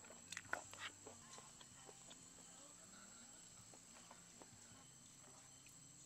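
Near silence, with a faint, steady, high-pitched insect drone of crickets. A few light knocks come within the first second.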